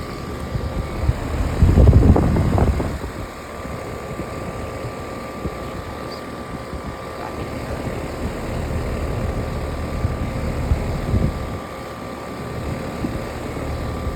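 Two outdoor air conditioner condenser units running: the fans whir steadily over a constant electric hum. A louder low rumble swells for about a second and a half, about two seconds in.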